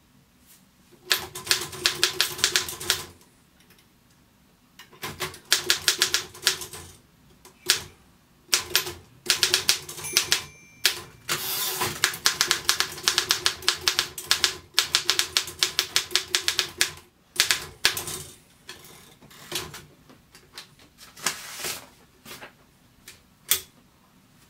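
1945 Royal KMM manual office typewriter being typed on: rapid runs of sharp keystroke clicks lasting a second or a few seconds each, with short pauses between them.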